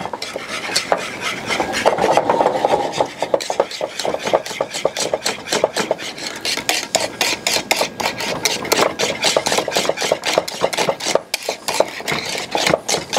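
Whisk beating thickening béchamel sauce in a saucepan, with rapid, steady scraping strokes against the pan as roux is worked into the hot milk.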